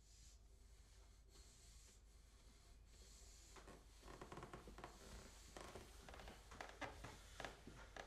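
Near silence: faint room tone, with soft, irregular taps and rustles that start about halfway through and grow a little louder toward the end.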